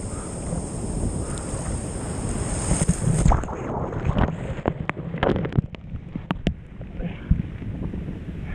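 Kawasaki SXR1500 stand-up jet ski running through surf with wind on the microphone and a steady high whine. About three seconds in, a breaking wave buries the ski and the whine cuts off suddenly, leaving muffled rushing water with scattered splashes and knocks.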